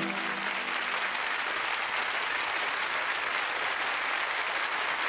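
Studio audience applauding as the song ends, the last held notes of the music dying away in the first second.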